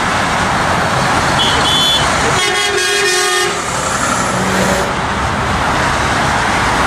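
Steady highway traffic running below, with a vehicle horn honking once for about a second a little over two seconds in; two short high beeps sound just before it.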